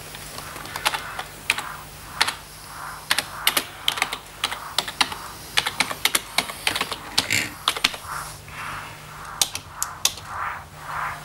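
Typing on a computer keyboard: irregular runs of key clicks with short pauses between words.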